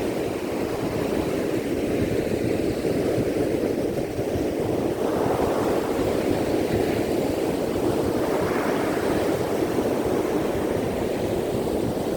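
Ocean surf breaking and washing up on a sandy beach: a steady rumbling roar of waves, with the hiss of the wash swelling up every couple of seconds.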